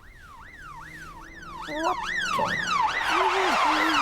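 Police car siren in fast up-and-down sweeps, getting louder about halfway through as it comes closer.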